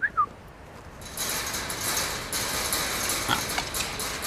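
A pig rooting with its snout in soil and straw, close by: a steady crackling, rustling noise that sets in about a second in.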